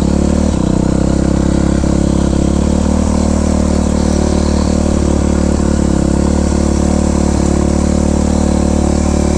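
Yamaha YZ426F's four-stroke single-cylinder engine running at steady revs while the dirt bike is ridden.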